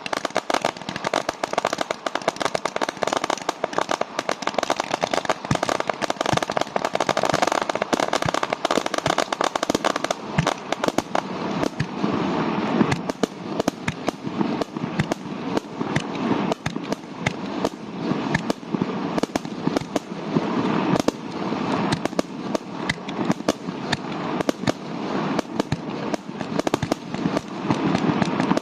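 Fireworks going off in a rapid, unbroken barrage: many sharp bangs and crackles each second over a rumbling wash of detonations.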